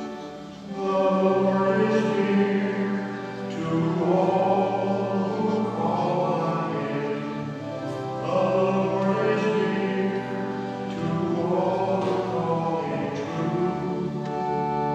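A man singing a slow sacred melody with instrumental accompaniment holding sustained chords. The voice comes in about a second in, over an accompaniment already playing.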